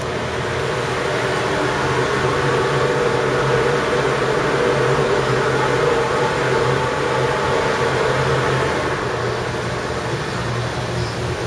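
Steady mechanical hum of a ventilation fan in a steel ship compartment, a constant drone with several steady tones.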